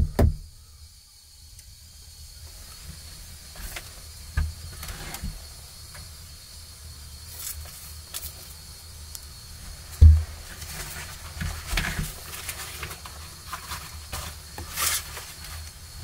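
The last quick knocks of a wooden peg being driven into a log wall stop right at the start. After that comes a steady low rumble with scattered knocks and rustles of handling, and one loud thump about ten seconds in.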